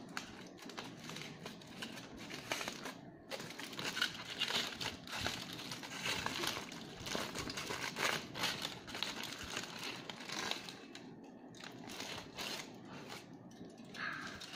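Aluminium foil crinkling and crumpling as a foil-wrapped package is unfolded by hand, in an irregular run of crackles.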